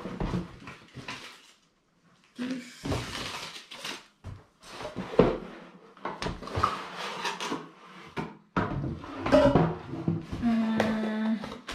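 Cardboard laptop packaging and paper leaflets being handled: a string of irregular rustles, scrapes and light knocks as the box is reached into and a paper manual is pulled out.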